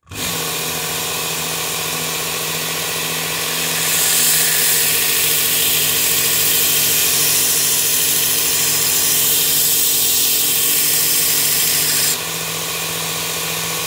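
Work Sharp Ken Onion blade grinding attachment running on its extra-coarse belt, switching on at the start. About four seconds in, a knife blade goes onto the moving belt and a loud hissing grind rides over the motor hum. Near the end the blade comes off and the belt runs free. This is a coarse-grit pass that raises a burr.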